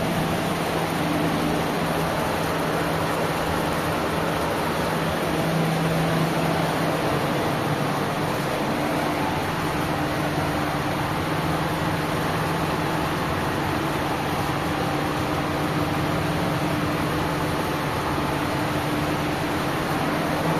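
Steady hum and rush of refrigeration machinery, the cold store's fans and cooling units running, with a constant low drone under an even airy noise.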